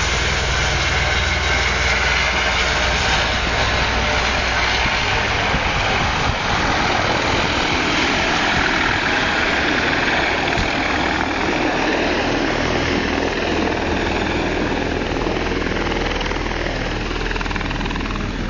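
Helicopter running steadily and loudly, its turbine engine and rotor making a continuous noise.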